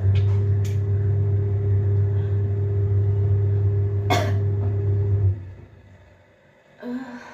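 A loud, steady low hum that stops suddenly about five seconds in, with a sharp click shortly before it stops. Near the end comes a short cough.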